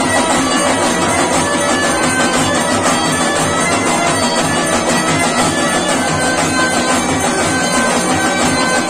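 Live traditional festival band music at a steady loud level: a large drum beating a fast rhythm under a droning, reedy wind instrument.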